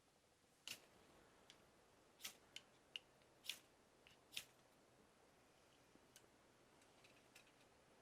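Near silence with a handful of faint, sharp ticks scattered irregularly through the first half.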